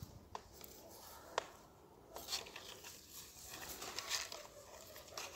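Faint rustling of leaves and loose soil as hands work around the base of a young plant, with a few light clicks.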